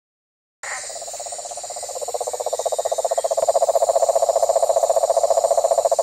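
Rainforest soundscape: a loud, rapidly pulsing animal trill, about ten pulses a second, starts about half a second in and grows louder over the next couple of seconds, over a steady high insect drone.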